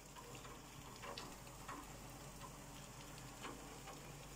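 Faint light rain: a few scattered drops ticking at irregular moments over a low steady hum.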